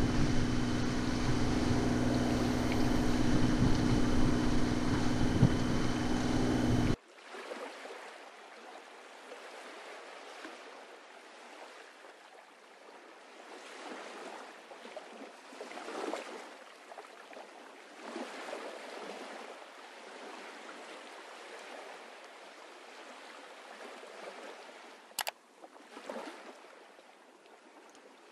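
A sailing yacht's auxiliary engine running steadily under wind and water noise. About seven seconds in it cuts off abruptly, leaving only a faint, thin wash of water and wind that swells now and then, with a short click near the end.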